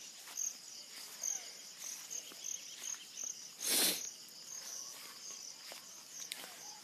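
An insect chirping in a steady high-pitched pulse, about two and a half chirps a second. A short burst of noise cuts across it about four seconds in.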